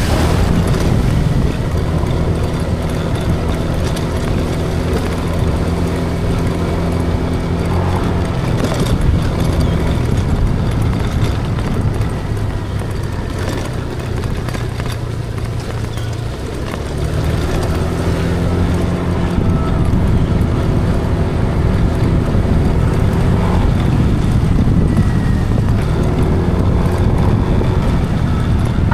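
Car engine and road noise while driving. The engine note eases off about eight seconds in and picks up again at about seventeen seconds.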